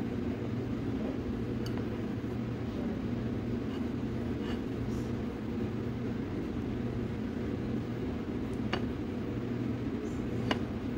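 Steady low background rumble, with a few light clinks of a knife against a glass jar and a plate as chocolate spread is scooped and spread on a crepe; the sharpest clink comes near the end.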